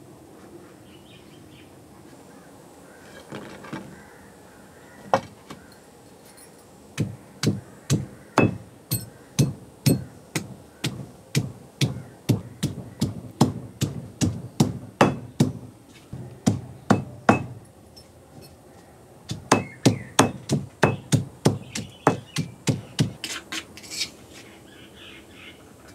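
Stone pestle pounding garlic and ginger in a heavy stone mortar: steady knocks about twice a second in two long runs, with a short pause between them.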